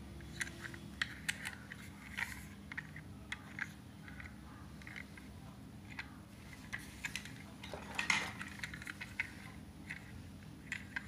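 Scattered light clicks and rattles of a toy passenger-train coach being handled and turned over in the hands, with a denser cluster of clicks about eight seconds in.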